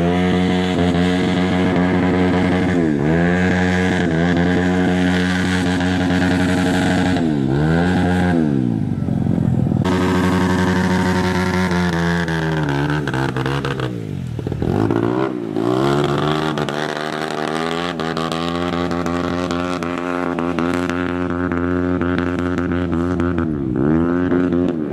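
Dirt bike engine revving hard, its pitch dipping and climbing back up several times as the throttle is eased and opened again.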